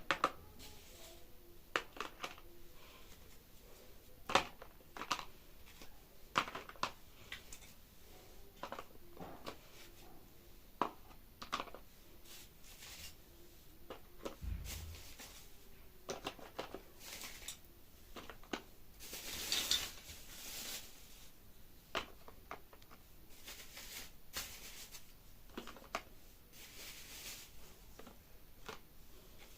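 Small objects being handled and set down: irregular light clicks and taps, a soft thud about halfway through, and a brief rustle a little later.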